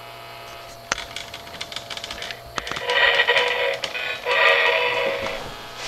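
O gauge model steam locomotive blowing its whistle in two long blasts, a short one then a longer one, over a run of light clicking from the wheels on the track joints.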